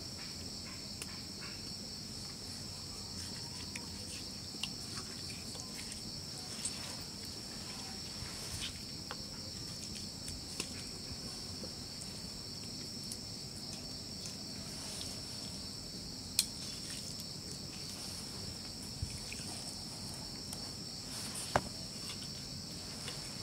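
Steady chorus of crickets, a continuous high trill, with a few scattered sharp clicks, two of them louder, about two-thirds of the way through and near the end.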